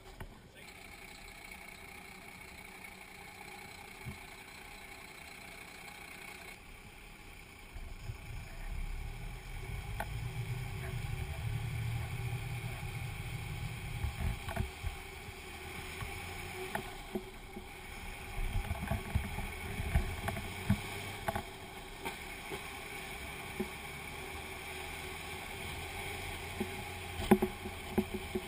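Fire truck's diesel engine running, a low steady rumble that comes up about eight seconds in, with wind on the microphone and scattered knocks and rattles, the loudest near the end.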